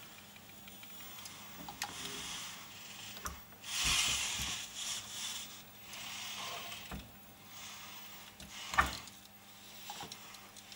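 Joint servos of a 3D-printed robot arm whirring in short spurts, with scattered clicks and knocks of the arm's rigid finger against a wooden cabinet door as it pulls the door open. A sharp knock late on is the loudest sound.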